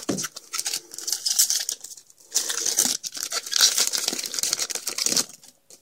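Foil wrapper of a baseball card pack being torn open and crinkled, in several crackly stretches that stop near the end.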